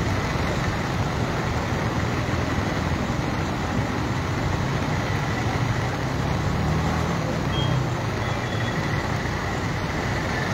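Steady rushing of a flooded river and heavy rain, with vehicle engines running on the road beside it. A low engine hum swells a little about two-thirds of the way through.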